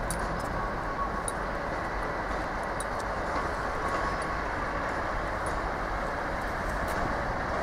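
Steady running noise inside a moving passenger train's carriage, with a few faint light clicks over it.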